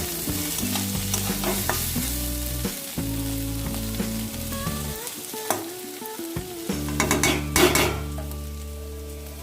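Vegetables sizzling as they stir-fry in a pan, with a spatula stirring and clicking against it, the clatter loudest near the end. Background music plays underneath.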